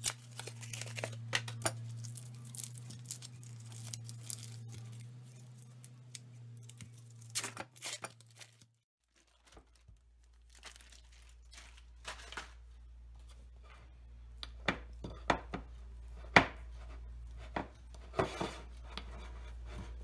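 Foil-lined cream cheese wrapper crinkling and tearing as it is peeled off the block, in a run of sharp crackles. The sound breaks off briefly just before the middle, then the crackling goes on.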